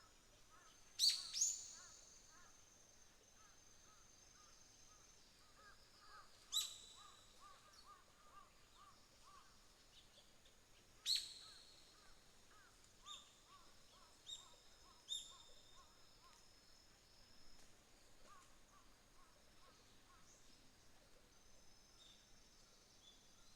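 Birds calling: sharp high calls that drop quickly in pitch, loudest twice about a second in, again at about six and eleven seconds, then weaker ones, over runs of quick, softer lower chirps. Insects trill steadily and thinly underneath.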